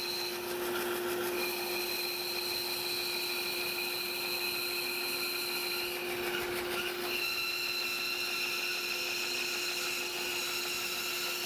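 Band saw running steadily, a low hum with a high whine, its blade cutting a circle in a rough chunk of wood as the piece is turned on a circle-cutting jig.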